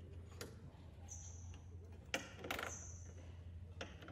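A few faint clicks and taps of hand work on a truck cab's metal step panel, over a steady low hum.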